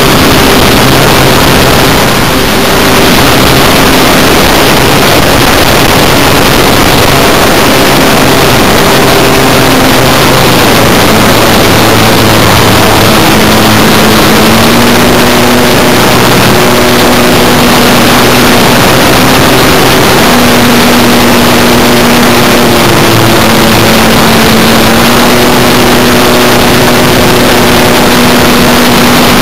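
Electric motor and propeller of an E-flite Apprentice RC trainer plane, recorded by a camera on the plane, under loud, heavy wind rush. The motor's steady pitch steps up and down a few times as the throttle changes.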